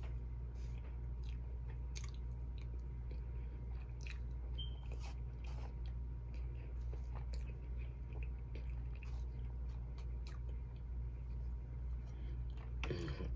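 A person chewing and eating a mouthful of baked chicken and rice, with scattered small clicks and a louder rustle near the end, over a steady low hum.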